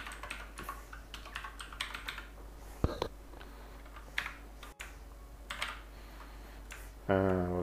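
Computer keyboard typing: irregular keystrokes, closely spaced for the first few seconds, then sparser. A person's voice starts briefly just before the end.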